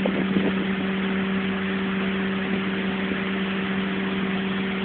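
Fishing boat's engine running steadily, an even hum with no change in speed.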